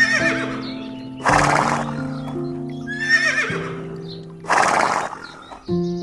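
A horse whinnying twice, about three seconds apart, each wavering call followed by a short, loud noisy burst, over background music.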